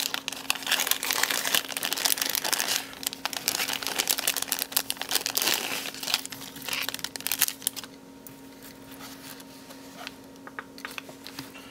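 Clear plastic parts bag crinkling and rustling as it is handled. The crinkling is dense for about eight seconds, then thins to a few quieter rustles.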